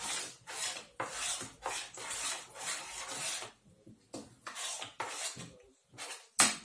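Spoon scraping through a thick grated horseradish-and-tomato mix in a bowl while stirring: a rasping stroke about three times a second, with a short pause about four seconds in. A sharp knock, the loudest sound, comes near the end.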